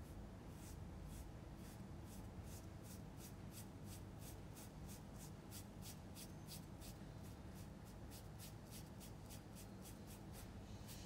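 Paintbrush stroking oil paint onto canvas in quick back-and-forth strokes, a faint dry swish about three times a second.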